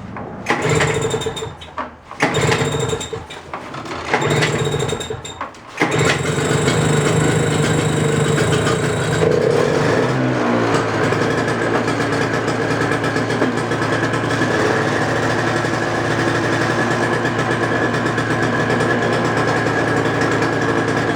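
Toro snowblower engine being started cold on choke: three short bursts of cranking, then at about six seconds it catches and keeps running. Around ten seconds its pitch drops and it settles into a steady run. It runs now that carburetor cleaner has freed the varnished, stuck needle and seat.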